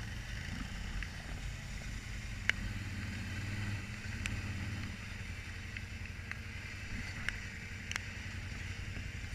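Can-Am Outlander ATV engine running at low speed as it creeps over rock, a steady low engine note that picks up slightly about two and a half seconds in and then eases off. A few short sharp clicks and knocks are heard over it.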